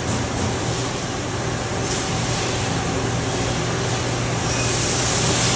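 Hardinge Quest 851 CNC lathe running a warm-up cycle: a steady machine hum under the hiss of coolant spraying inside the enclosure. The hiss grows louder about four and a half seconds in.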